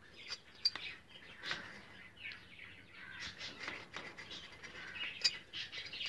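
Budgerigars chirping and chattering: many short, rapid chirps with a few sharp clicks among them.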